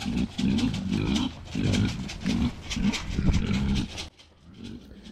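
Kunekune boar grunting over and over as it trots along, about two to three short grunts a second; the grunting stops about four seconds in.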